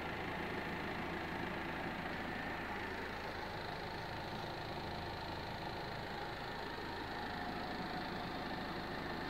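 Work truck's engine idling steadily, heard from inside the cab.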